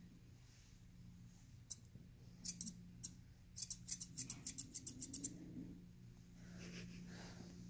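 Thinning shears snipping through a Welsh terrier's head hair: a single snip, a few more, then a quick run of about a dozen snips.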